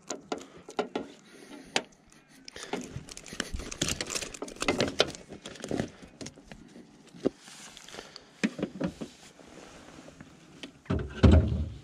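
Handling noise of metal pliers and fishing line as a hook is worked out of a small Murray cod: small irregular clicks and rustles. Near the end comes one loud, low knock.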